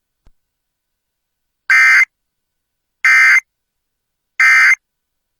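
Emergency Alert System end-of-message signal: three short bursts of screeching SAME digital data tones, about 1.3 s apart, marking the end of the severe thunderstorm warning.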